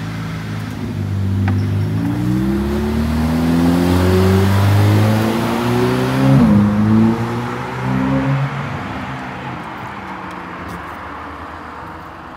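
A car engine revving as the car accelerates past, its pitch climbing. It is loudest about six and a half seconds in, then fades away.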